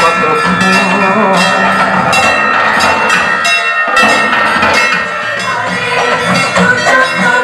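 Music with a steady beat, about two to three beats a second; it thins briefly about three and a half seconds in before a strong beat.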